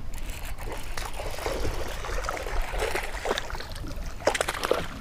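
Water splashing and trickling around a kayak: a run of small, irregular splashes and drips.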